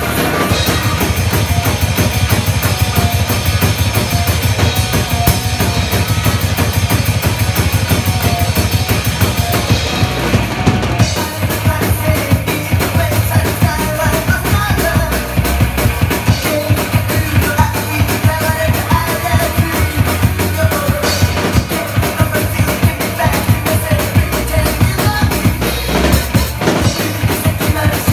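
A TAMA acoustic drum kit played live in a fast rock beat of bass drum, snare and cymbals, over a backing track of rock music.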